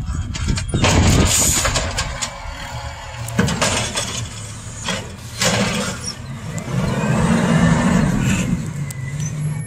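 Garbage truck's diesel engine running at the curb, revving up and back down about seven to nine seconds in with a rising then falling whine, as its automated side arm works the bins. A few sharp knocks come earlier.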